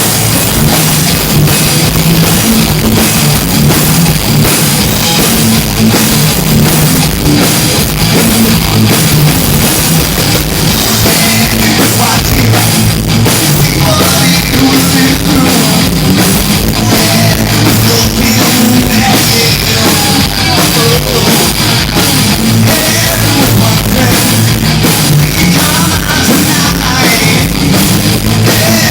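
Rock band playing loudly, with a steady driving drum beat under guitars.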